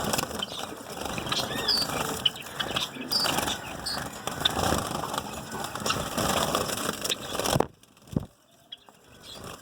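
A colony of zebra finches and white finches chirping with short high calls over a busy stream of small clicks and flutters from the birds moving about. The sound drops off suddenly about three-quarters of the way through and stays faint.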